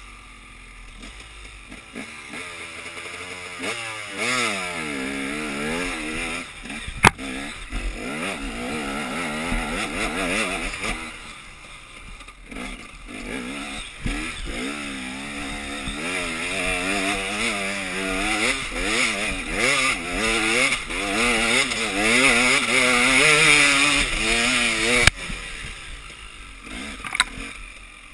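Enduro motorcycle engine heard onboard, revving up and down over and over as the rider accelerates and backs off through the turns of a dirt course. Two sharp knocks stand out, about seven seconds in and near the end.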